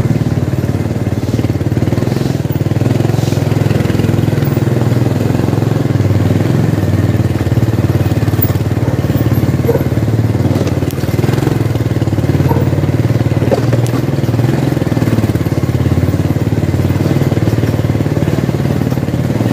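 Motorcycle engine running steadily while riding at low speed.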